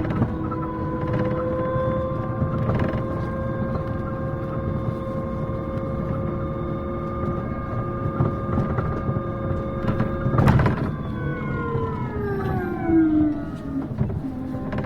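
City bus running, its drive giving a steady pitched whine over road rumble; about 11 seconds in the whine falls as the bus slows, then rises again near the end as it speeds up. A sharp knock sounds about ten seconds in.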